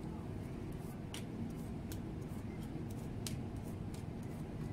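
Tarot cards being dealt and laid out on a tabletop: light clicks and slides as each card is set down, heard at irregular moments over a steady low hum.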